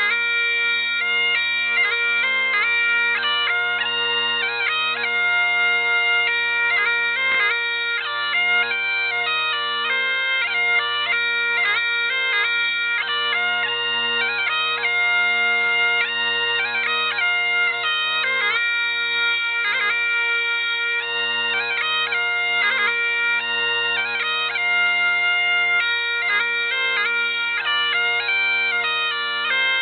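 Bagpipes playing a tune: steady drones under a chanter melody broken by quick grace-note flourishes, without a pause.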